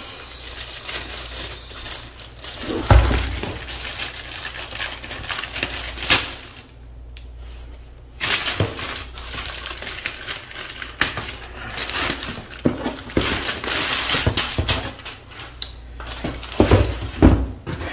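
Thin plastic protective bag crinkling and rustling as a laptop is slid out of it and unwrapped, with a short pause midway and a couple of dull knocks.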